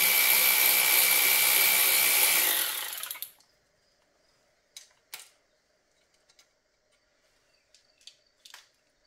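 Cordless power ratchet running steadily with a thin whine as it backs a bolt out of the transmission case, stopping about three seconds in. A few faint clicks of parts being handled follow.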